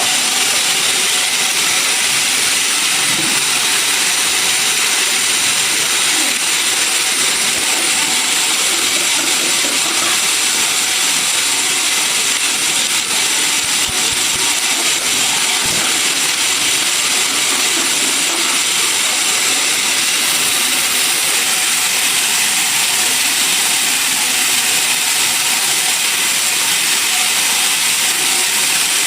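Sawmill saw running steadily: a loud, even noise with no breaks or changes in level.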